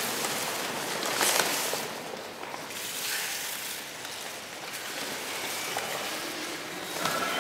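Large sheets of paper rustling and crinkling as a dancer moves in them, in uneven swells with a louder rush about a second in.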